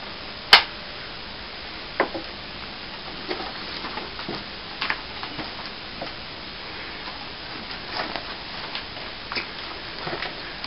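Plaster mould creaking and cracking as it is prised off with a crowbar: one sharp loud crack about half a second in, another at about two seconds, then a scatter of small irregular clicks and creaks.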